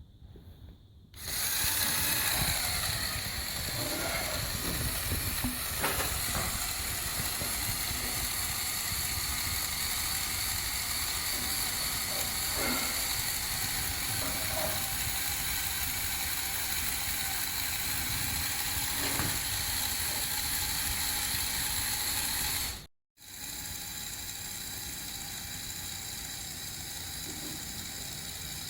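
Lego Technic Mercedes-Benz Arocs model's electric motor and gear train running, a steady whirring with gear clicking as the tipper module works. It starts about a second in, stops briefly about 23 seconds in, then runs on a little quieter.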